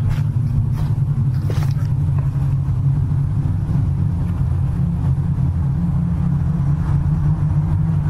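A steady low rumble, with a few faint clicks and crackles in the first two seconds.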